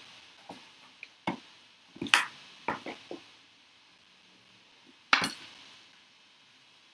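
Plastic craft tools being handled: a run of light clicks and taps as the clear stamp and acrylic pieces are set aside, then one sharp plastic snap about five seconds in as the clip-lid tub of embossing powder is opened.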